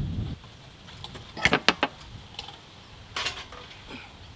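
Metal clanks and clinks of the chickens' iron hooks knocking against the rotisserie wheel's rods and the metal pan as the grilled chickens are unhooked and piled in. There are two sharp clanks about a second and a half in, another cluster near three seconds, and light taps between.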